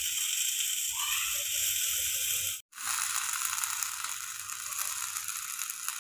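Whole eggplant sizzling as its skin chars directly over a gas burner flame, a steady hissing from juices escaping onto the hot skin. The sound cuts out briefly about two and a half seconds in.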